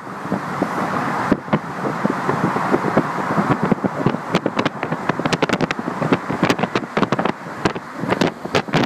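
Road and tyre noise of a car driving on the elevated highway, heard from inside the car, with wind buffeting the microphone in crackles that come thicker from about halfway.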